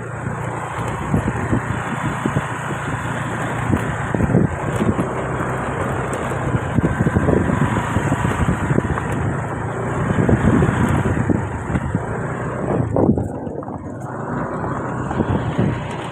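A vehicle running while on the move: a steady low engine drone under dense, rough noise that swells and eases irregularly, dipping briefly near the end.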